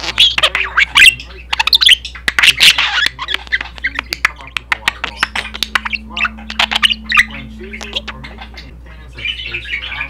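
Budgerigar chattering: quick chirps, clicks and short squawks, busiest in the first three seconds and again near the end, thinner in the middle.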